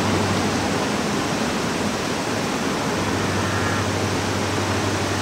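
Freight train cars rolling across a steel trestle bridge: a steady roar with a low, even drone underneath.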